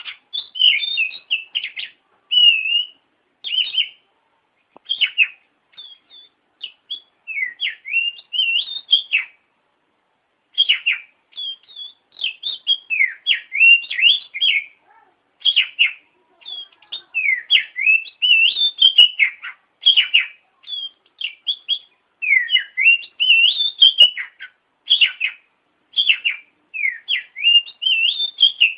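Oriental magpie-robin (kacer) singing: a steady run of varied whistled phrases with quick rising and falling slurs, broken by short pauses.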